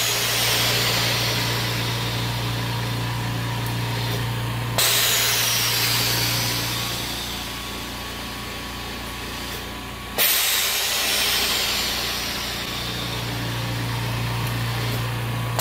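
DIY OxiKit oxygen concentrator running: its roughly 2-horsepower air compressor hums steadily while the valves switch about every five and a half seconds, each switch letting out a sudden loud hiss that fades over a few seconds as a sieve bed empties. This is the normal pressure-swing cycle of the concentrator at work.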